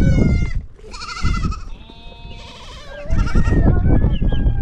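A penned flock of sheep and goats bleating, several calls one after another and overlapping, some long and wavering. A heavy low rumble comes in about three seconds in.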